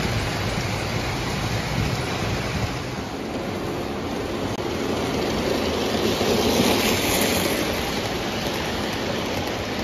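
Lionel O gauge toy trains running on tubular metal track: a steady rolling rumble of metal wheels on rail as passenger cars pass close by, swelling about six to seven seconds in.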